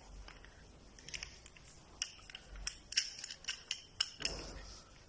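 Light metallic clicks and small scrapes of bicycle bottom-bracket tool parts being screwed together by hand, with a short rubbing scrape near the end.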